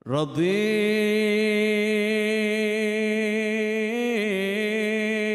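A man's unaccompanied voice singing suluk, Arabic devotional chant. He starts suddenly and holds one long melismatic note with a slight waver, its pitch dipping briefly about four seconds in.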